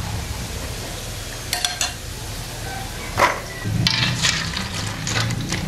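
Macaroni frying in hot oil in a wok, with a wire-mesh strainer clicking against the wok a few times. Near the end a batch of raw macaroni is tipped into the oil and the sizzling grows louder.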